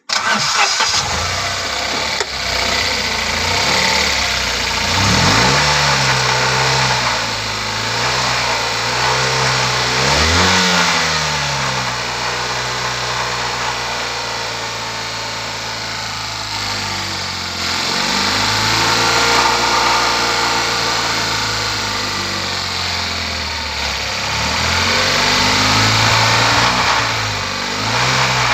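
Tata Nano's two-cylinder petrol engine starting, then idling and being revved up and back down several times. Its owner's complaint is that it misfires, does not respond properly to the accelerator and pops when the throttle is opened.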